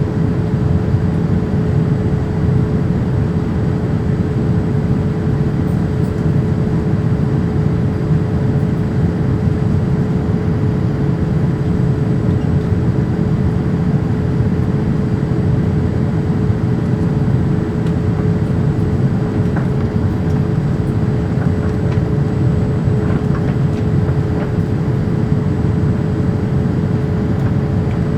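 Inside the cabin of a Boeing 787-8 in flight: a steady rush of airflow and General Electric GEnx engine noise, with an even mid-pitched hum running through it.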